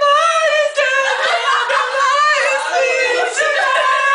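Unaccompanied singing in a high voice, sliding between notes, then holding one long note near the end.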